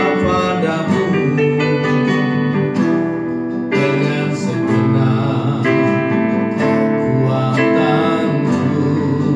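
Worship song performed live: a man singing in Indonesian, accompanied by a strummed acoustic guitar and keyboard.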